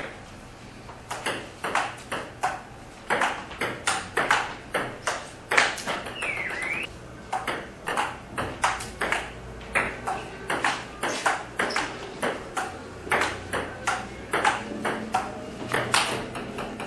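Table tennis rally: the celluloid ball clicking off the paddles and bouncing on the table in a quick, even back-and-forth, a few hits a second.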